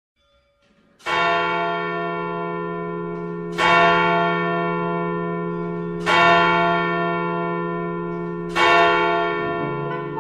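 A large bell tolling four times, about two and a half seconds apart. Each stroke rings on and is still sounding when the next one comes.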